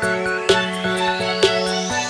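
Background electronic music with a steady beat, about one hit a second, under a rising sweep.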